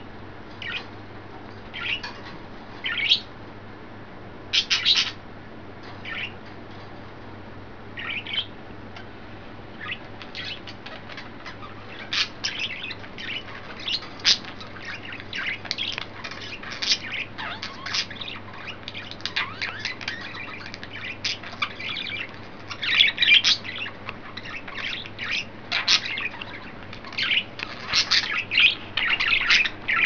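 Several pet budgerigars chirping and squawking in short, sharp calls, scattered at first and coming thick and fast in the second half.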